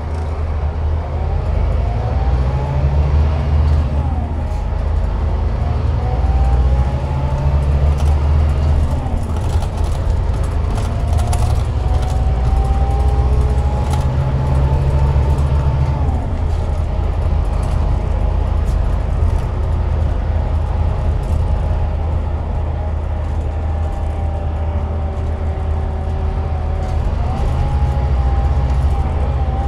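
Scania DC13 inline-six diesel of a bus running under way, a low drone that swells and eases several times as the load changes. A thin whine from the driveline glides up and down with road speed above it.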